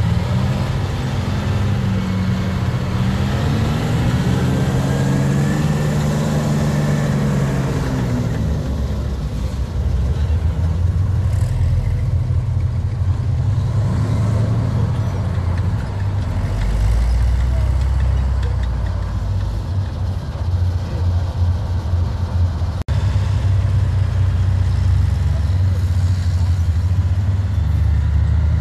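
A WWII American tank destroyer's engine running as the vehicle drives. Its pitch rises and falls over the first several seconds, then it settles into a steady deep rumble.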